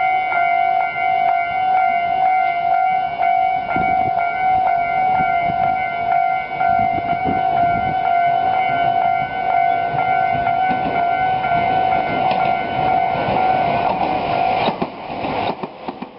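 Japanese railway level crossing's electronic warning bell ringing in a steady repeating rhythm while a train rumbles across. The bell stops near the end and the train noise carries on briefly.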